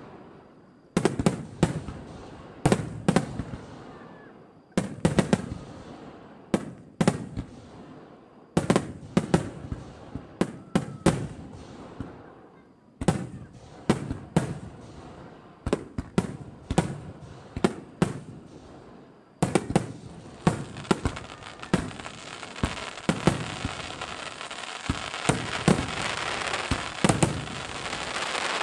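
Aerial fireworks going off in quick volleys of sharp bangs, with brief lulls between the clusters. About two-thirds of the way in, a continuous crackling hiss sets in and builds under the bangs to the end.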